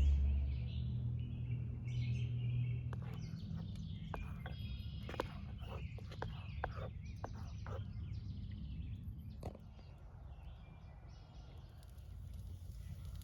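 Outdoor ambience with birds chirping. A low rumble is loudest at the start and fades out after about three seconds, and a quick run of sharp clicks comes through the middle.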